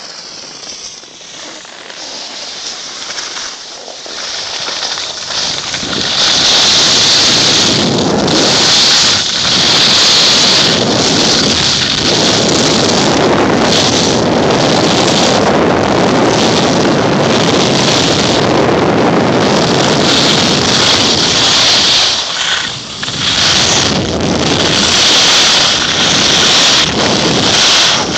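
Wind rushing over the microphone and skis hissing and scraping on packed snow during a fast downhill ski run, building over the first six seconds as speed picks up, then staying loud with a couple of brief dips after twenty seconds.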